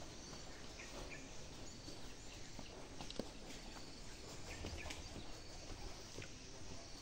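Outdoor ambience: steady background hiss with short, scattered bird chirps.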